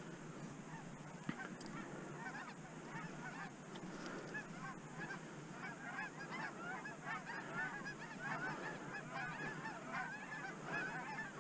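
A flock of Canada geese in flight honking, many calls overlapping, getting busier about halfway through.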